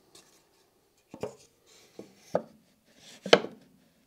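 A wooden board knocking and tapping against the spindle moulder's fence and table as it is positioned by hand: several separate knocks, the loudest a little over three seconds in.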